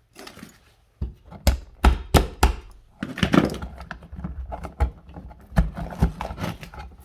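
Irregular sharp knocks and thunks, with some scraping, as a new-construction electrical box nailed to a stud is pried and worked at to get it out of the wall. They begin about a second in.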